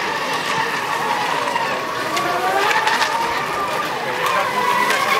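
Electric RC racing boats running flat out, a steady high whine from their motors with the pitch wavering slightly, over a hiss of spray.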